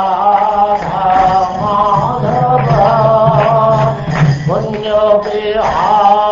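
A man singing a slow devotional chant, holding long, slightly wavering notes over a steady low drone.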